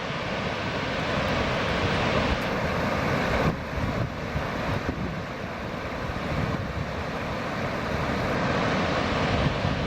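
Steady outdoor rushing noise with an uneven, gusty low rumble, the level shifting slightly a couple of times.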